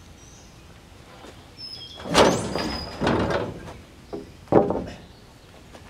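Long sawn wooden board scraping as it is pushed across a wooden beam, in two pushes about a second apart, then two sharp knocks as it settles on the beam.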